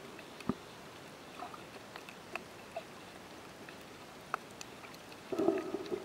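Underwater sound heard by a camera below the surface over a reef: a steady low hiss with scattered sharp clicks, and a louder gurgling burst near the end.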